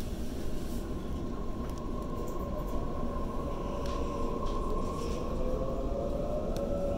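Waratah A set electric train pulling away from a station: rumble and running noise, with the traction motor whine rising steadily in pitch from about halfway through as the train accelerates.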